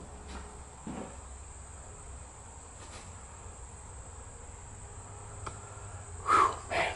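Steady high-pitched insect trill, as of crickets. Footsteps on the floor: a soft one about a second in and two louder thuds near the end.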